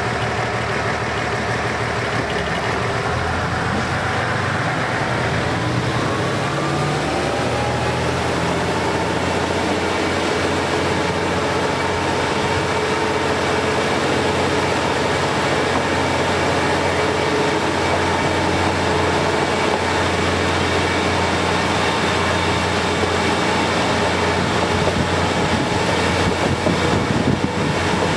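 KiHa 40-series diesel railcar pulling away: its diesel engine revs up with a rising pitch over the first several seconds, then the train runs on steadily with engine and rail rumble, heard from inside the car.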